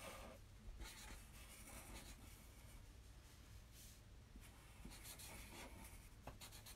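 Black marker drawing on paper: faint scratchy strokes that come and go as spots are drawn in.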